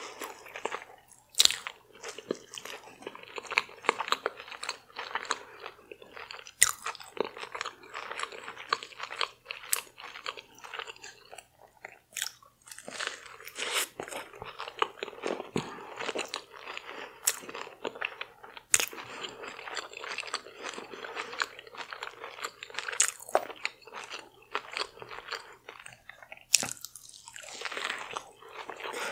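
Close-miked chewing and biting of crunchy deep-fried seafood in a Doritos coating, a steady wet crackle with frequent sharp crunches throughout.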